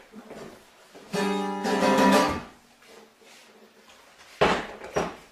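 Acoustic guitar strummed once about a second in, the chord ringing for over a second before fading. Near the end, a sharp knock and a smaller second one.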